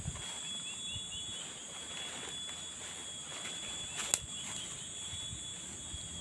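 Tropical forest insects, cicadas and crickets, droning steadily in several high, even tones. A quick run of five or six small rising chirps sounds about a second in, soft low thumps come and go, and a sharp click stands out a little after four seconds in.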